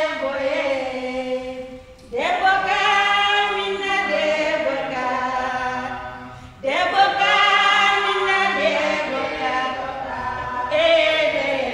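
Unaccompanied singing in long, drawn-out held phrases, a new phrase beginning about two seconds in and again about seven seconds in.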